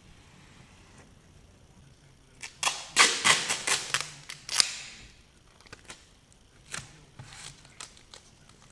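A quick run of sharp clicks and knocks of hard objects, about two and a half seconds long, followed by a few scattered single taps.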